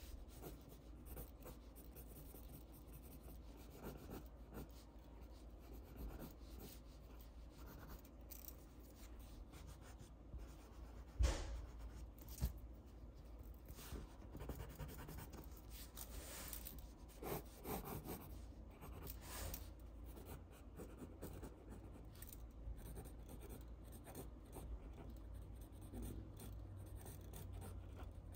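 Pencil sketching on paper: faint, irregular scratching strokes, with hands rubbing across the sheet. A sharp knock comes about eleven seconds in and a smaller one a second later.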